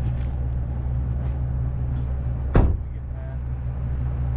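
Off-road 4x4's engine running steadily at low revs, with one sharp knock about two and a half seconds in.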